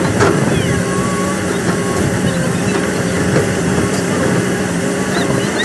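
XCMG XE215 excavator's diesel engine running steadily, with a few faint high chirps over it.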